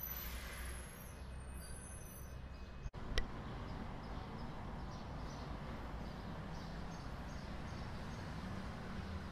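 Steady road-traffic noise from vehicles crossing a motorway bridge, with birds chirping during the first couple of seconds. About three seconds in, the sound cuts out for an instant and a sharp click follows.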